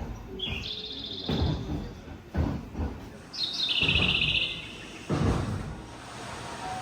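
Two bursts of high, rapidly twittering chirps, about a second each: one near the start and a louder one in the middle. Scattered low thumps and rumble lie in between.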